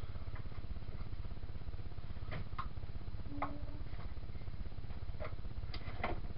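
A few light clicks and taps of router bits being picked out of a plastic bit case and handled, over a steady low hum.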